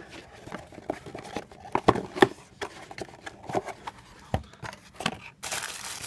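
Unboxing handling of a dash camera's box and packed accessories: scattered small clicks and knocks, then a steady crinkling of packaging starting about five seconds in.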